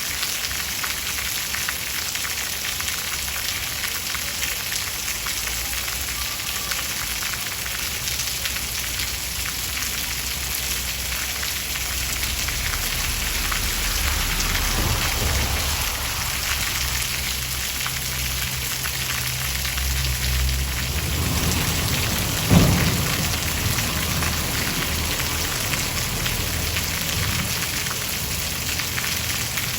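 Steady heavy rainfall hissing throughout. Low rolling thunder builds through the middle, with one sharp clap about three-quarters of the way in before the rumble fades.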